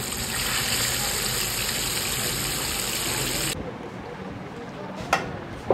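Masala-coated river-fish steaks sizzling in hot oil, a loud steady hiss that cuts off suddenly about three and a half seconds in. After that it is quieter, with two short sharp clicks near the end.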